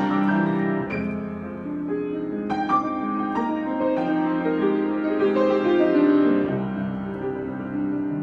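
Solo piano improvisation: slow, held chords with new notes struck about a second in and again around two and a half seconds in.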